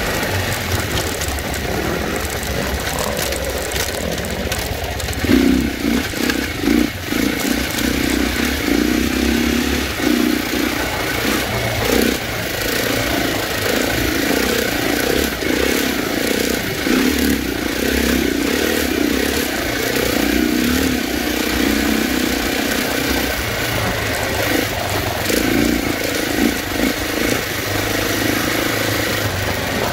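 Dirt bike engine running while being ridden, its revs rising and falling unevenly as the throttle is worked.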